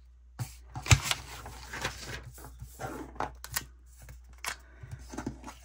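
Paper being handled and a paper sticker peeled from its backing sheet: crisp rustling and light clicks, with one sharper knock about a second in.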